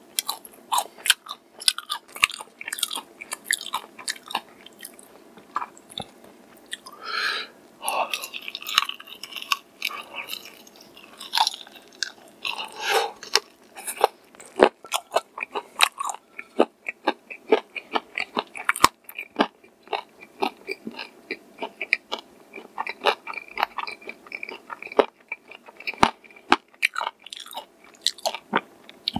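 Close-up chewing and biting of crispy fried chicken, its battered crust crunching in many sharp crackles.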